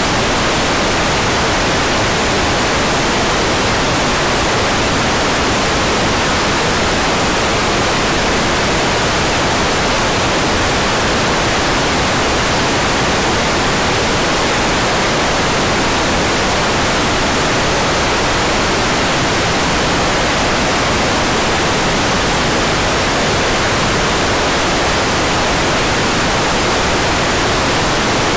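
Hair dryer blowing steadily: an even, unchanging rush of air with no rise or fall.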